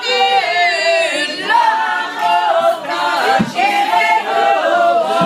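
A group of women singing a Basque song together, unaccompanied, in long held notes.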